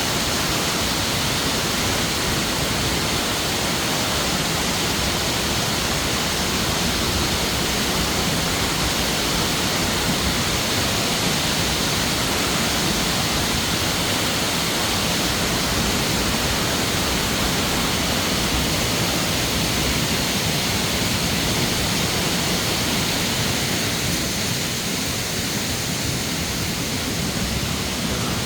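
Waterfall pouring steadily, a loud even rush of falling water.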